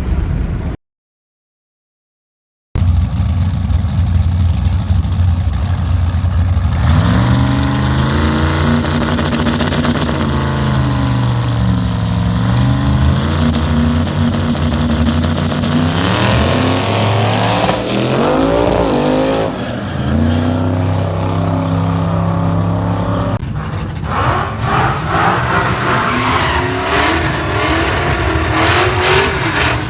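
Car engine running loud and revving, its pitch climbing and dropping again and again, after about two seconds of dead silence near the start.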